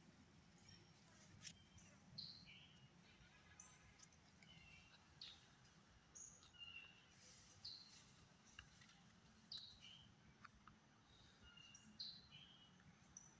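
Faint birdsong: short, high chirps, many sliding downward, repeating every second or two, with a few light clicks.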